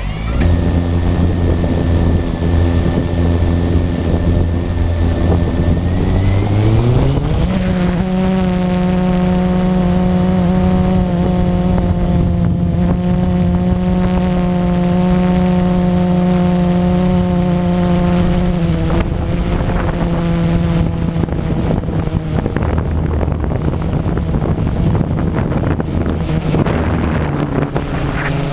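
Blade 350 QX quadcopter's four brushless motors and propellers start at once with a loud hum. About seven seconds in, the pitch rises as the drone throttles up and lifts off, then settles into a steady high buzz in flight. Heard close up from the camera on the drone itself.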